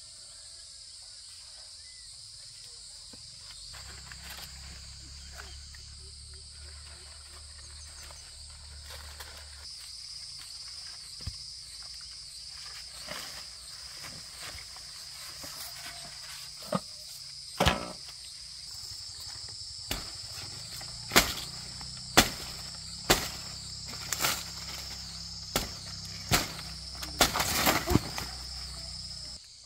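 Steady, high insect chorus of cicadas or crickets. About halfway through, a run of about a dozen sharp knocks or chops begins, roughly a second apart, and these are the loudest sounds.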